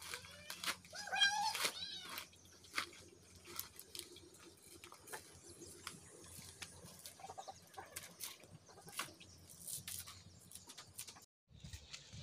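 A chicken calls loudly in the first two seconds with a wavering pitch, over scattered faint crackling and snapping as coconut husk fibres are torn apart by hand.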